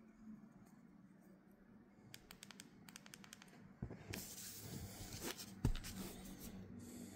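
Hands handling tablet packaging: a run of quick light clicks about two seconds in, then a hand rubbing and sliding over the paper sheet covering the tablet for a second or two, with a single knock near the end.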